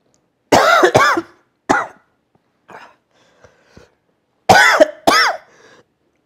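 A man coughing hard in two fits, a couple of harsh coughs about half a second in with a shorter one after, then two more about four and a half seconds in, set off by eating Carolina Reaper hot wings.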